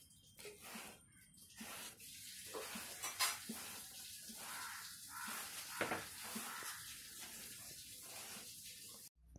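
Hands scooping and rubbing a heap of crumbly besan ladoo mixture: a gritty rustle that swells and fades with each toss. It breaks off suddenly near the end.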